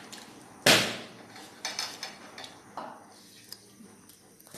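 Tableware knocking and clinking at a meal: one sharp knock about a second in, the loudest sound, then a few lighter clicks and clinks.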